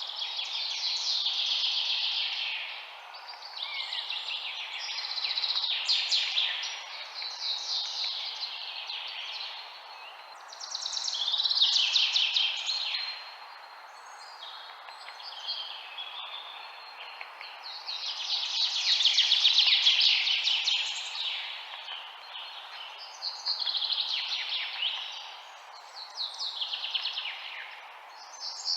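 Songbirds singing, phrase after phrase of rapid trilled notes, each phrase lasting one to a few seconds with short gaps between, over a faint steady background hiss.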